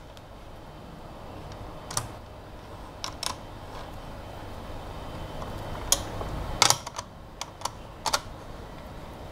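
Irregular light clicks and taps from hands and a small hand tool handling a workpiece and its holder frame on a small CNC engraver's aluminium bed, loudest in a cluster about two thirds of the way through.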